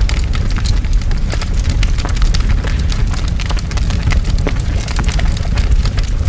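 Large forest fire burning: a constant deep roar of flames, with dense, irregular crackling and popping of burning wood.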